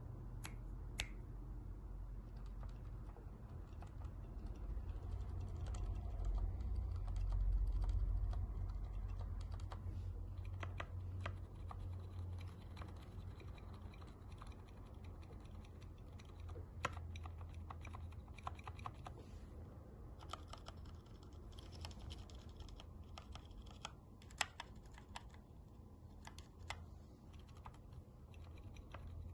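Mechanical keyboard with Gateron Brown switches being pressed key by key in irregular single strokes and short runs, the presses carrying the metallic sound the keyboard is faulted for. A low rumble runs underneath.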